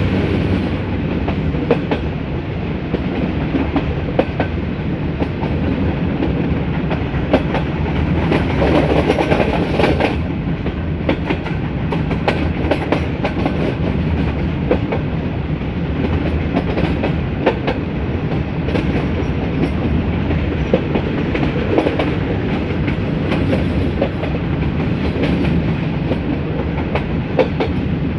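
Metre-gauge passenger train running along the track: a steady rolling rumble with irregular clicks of wheels over rail joints, briefly louder and hissier about eight seconds in.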